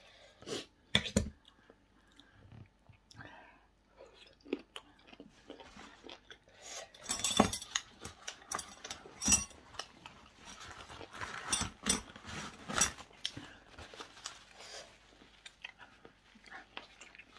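A person chewing and crunching food close to the microphone, with a couple of sharp snips of kitchen scissors cutting grilled squid about a second in.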